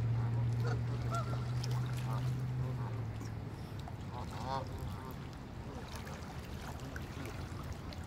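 Canada geese calling, a few short scattered calls with a quick cluster about four and a half seconds in, over a low steady hum that fades after about three seconds.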